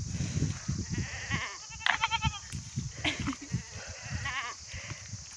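Goats in a grazing flock bleating, with quavering calls about two seconds in and again near four seconds, over close rustling and soft knocks of the animals moving.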